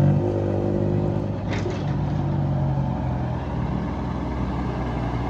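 Bus engine running steadily. A held chord of higher tones stops about a second in, and a short hiss follows shortly after.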